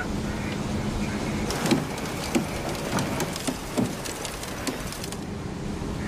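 Boat engine running with a steady low hum, with a run of knocks and clicks through the middle.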